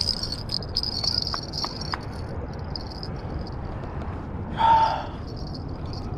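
Insects trilling steadily at a high pitch, a pulsing trill that keeps going throughout. A few faint clicks come between one and two seconds in, and a short, louder sound of about half a second comes about three quarters of the way through.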